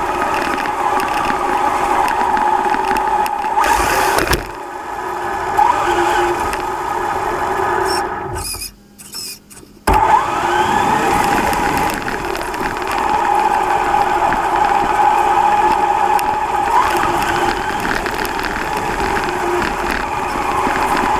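Traxxas Slash Ultimate RC car's electric motor and drivetrain whining under power, with tyre and chassis noise. The sound drops away about eight seconds in and cuts back in suddenly about two seconds later.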